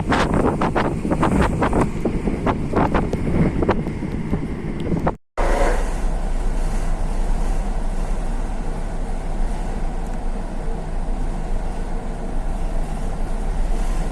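Wind buffeting the microphone aboard a ship, with many sharp crackles and gusts for about five seconds. After a brief cut it gives way to a steady rush of wind over a low, even hum from the ship.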